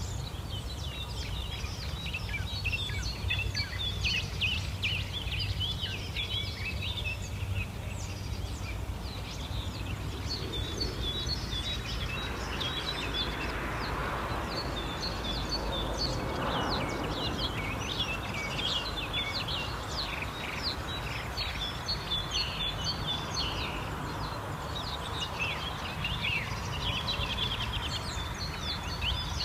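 A morning chorus of many songbirds singing and chirping over a steady low rumble; around the middle a rushing sound swells and fades.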